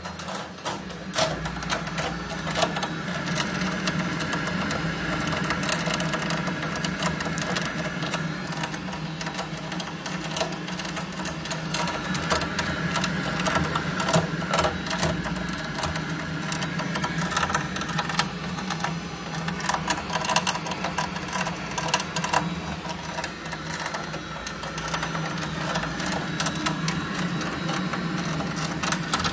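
Buderus gas boiler making a continuous fast rattling and clicking over a steady low hum: the fault noise the owner is filming.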